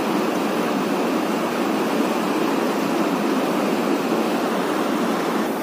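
Fast mountain stream of white water spilling over a weir and rocks: steady, even rushing.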